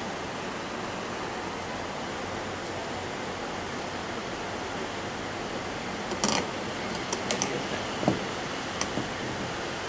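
Steady background hiss, then from about six seconds in a series of light clicks and taps as the metal combs of a comb sorter are handled.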